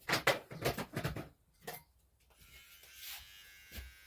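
A quick run of short clicks in the first second or so, then the faint, steady buzz of an electric hair clipper.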